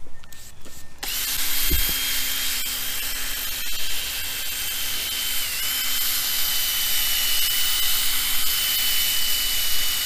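Cordless drill spinning a restoration pad against a plastic motorcycle windscreen, starting about a second in and running at a steady pitch with a brief dip near the middle. It sounds like the drill's battery is starting to go.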